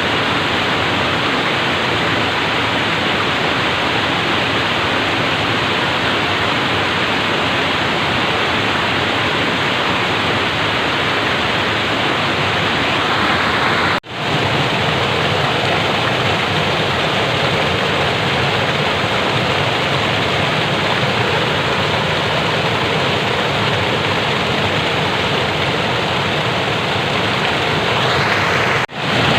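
Water flowing steadily, a constant rushing with no change in pitch. It cuts out for an instant about halfway through and again near the end.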